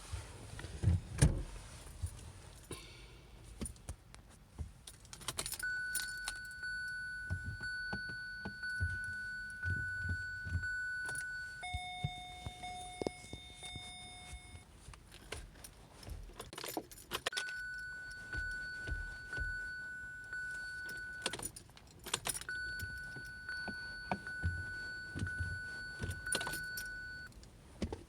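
Car keys jangling and clicking as the key is worked in the ignition of a 2017 Kia Sorento that won't start. A steady high electronic tone from the car comes on and cuts off three times, and a lower tone sounds for a couple of seconds near the middle.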